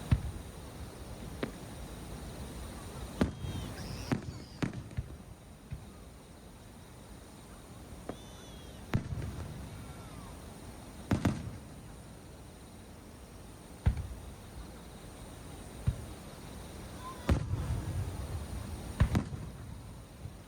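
Aerial fireworks shells bursting overhead: about a dozen sharp booms at irregular intervals, several trailing off in a longer rolling rumble.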